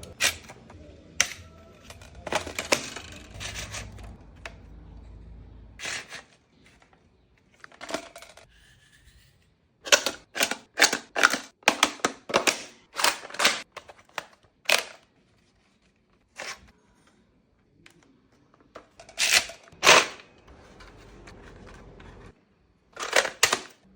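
Sharp plastic clicks and snaps from a toy blaster being handled, with a quick run of about a dozen clicks, two or three a second, midway and a few louder snaps near the end.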